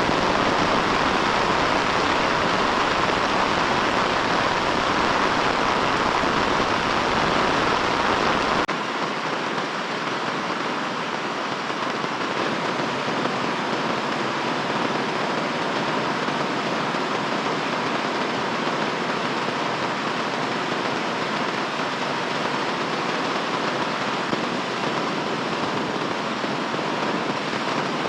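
Heavy rain falling in a steady, even hiss. About a third of the way in the low rumble drops out abruptly and the rain gets a little quieter.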